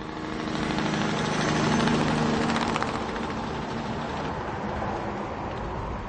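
Large truck driving past. Its engine note and road noise swell to a peak about two seconds in, then ease off to a steadier, lower level.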